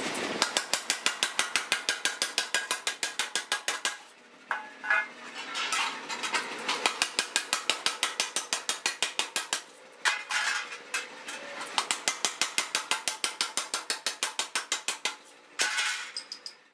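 A 15 kg mechanical power hammer striking a sheet-steel hoe blade in rapid, even blows, about five a second, to form the blade's curve. The blows come in runs of a few seconds with short pauses between.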